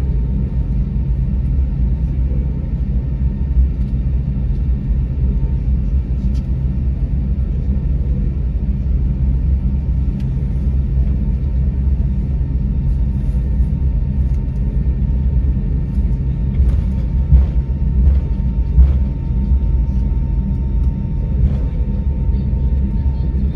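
Cabin noise of a jet airliner rolling along the ground after landing: a steady low rumble of the engines at low power and the wheels on the pavement, with a faint steady whine. A few brief knocks come in the second half, the loudest two close together.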